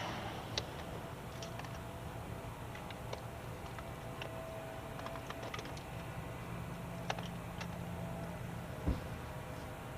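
Scattered light clicks and taps of hands working on an e-bike's luggage and battery, unclipping and handling the parts, with a single duller knock near the end.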